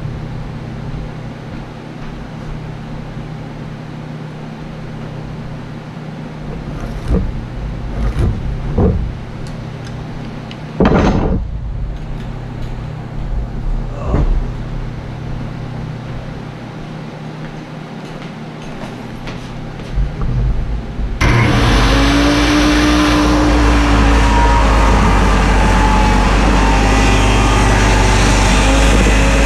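A few light knocks and taps as a board is handled and marked with a square. About 21 seconds in, a RIDGID circular saw starts suddenly and runs steadily, cutting an angled line across the wooden board.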